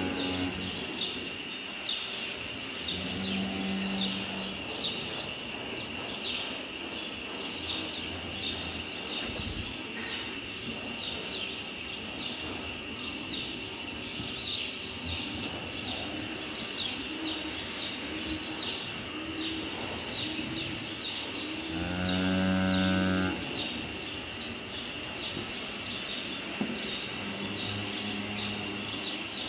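Holstein cattle mooing, low calls a few times, the loudest and longest about 22 seconds in. A steady high whine and rapid high chirping run underneath.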